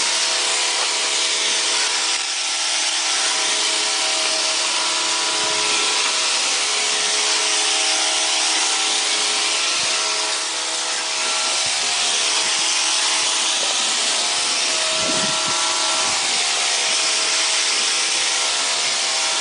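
Pressure washer spraying water through the jets of a 16-inch undercarriage cleaner rolled under a vehicle: a loud, steady hiss with a steady whine of several tones beneath it.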